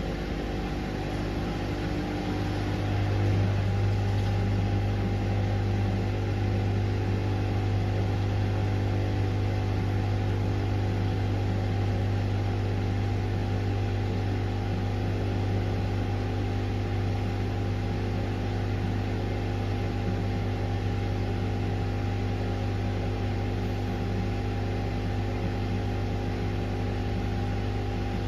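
Pasvens Cottons 40 washing machine running steadily mid-cycle, a constant motor hum that gets louder about three seconds in.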